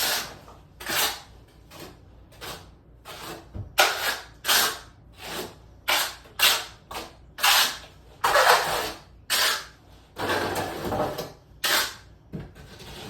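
Trowel scraping and spreading thinset mortar (speed set): a dozen or so short scraping strokes, roughly one a second, some drawn out longer.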